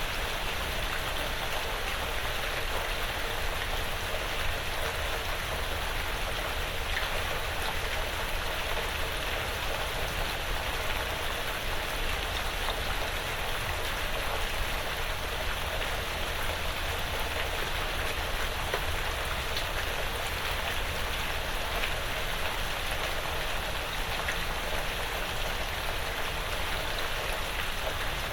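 Steady light rain falling on a porch roof and surrounding woods, an even hiss with scattered drop ticks.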